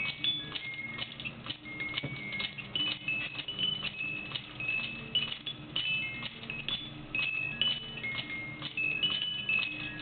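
The music box movement of a Jumeau doll automaton playing a tune of short, high plucked notes over a few lower ones. Light mechanical clicks from the clockwork run through it as the doll moves.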